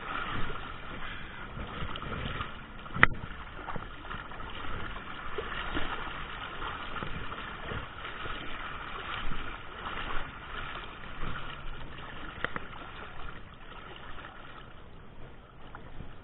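Water lapping and trickling against a kayak's hull on a flowing river, with a single sharp knock about three seconds in.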